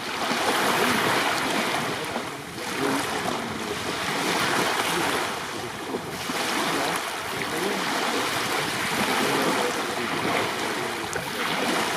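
Small waves breaking and washing up on a sandy beach, the rush of surf swelling and easing every two to three seconds.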